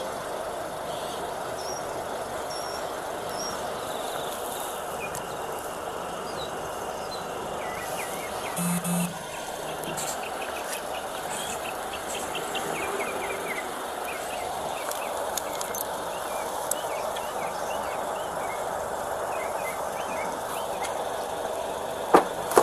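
Steady outdoor background noise with faint high chirps and a short electronic beep about nine seconds in. Near the end, a sharp click as a car's rear door handle is pulled.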